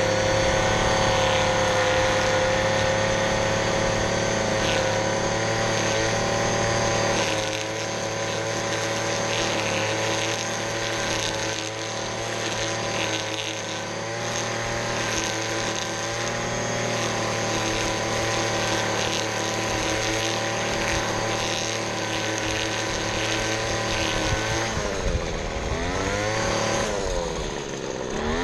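Small high-revving engine of a lawn power tool running at steady high throttle, with the revs dropping and climbing back twice near the end.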